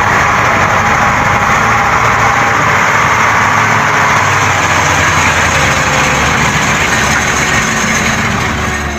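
Steady running of a heavy truck engine sound effect, laid over a CrossRC UC6 6x6 radio-controlled truck, easing slightly near the end.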